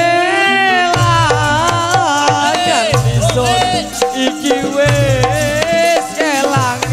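Javanese campursari music played live: a high melody line with vibrato over hand-drum strokes and a bass that pulses on and off about once a second.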